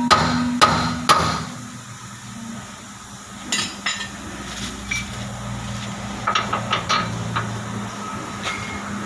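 Hammer striking metal, about two sharp blows a second, stopping about a second in, followed by scattered lighter metallic clinks of tools handled on the suspension.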